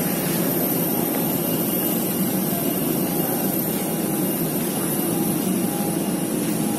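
Steady jet aircraft engine noise with a faint high whine running through it, even and unbroken.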